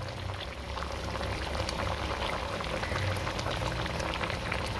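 Chicken cooking in oil and a little water with ginger-garlic paste and ground spices in a pot, bubbling and sizzling with a steady, fine crackle.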